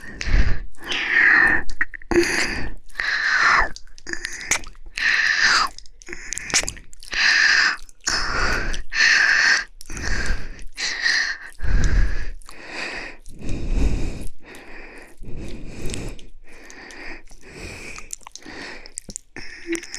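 Wet ASMR mouth sounds close to the microphone: slow ear-licking, kissing and breaths, an irregular run of short wet smacks and sighs about one a second, with a few low thuds of contact on the microphone.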